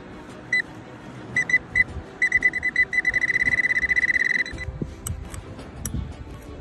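Handheld pinpointer metal detector beeping at a high pitch: a few short beeps, then faster and faster until it beeps almost continuously, the sign of metal in the soil right under its tip. After the beeping stops, about two thirds of the way in, a hoe chops into the dirt with a few sharp knocks.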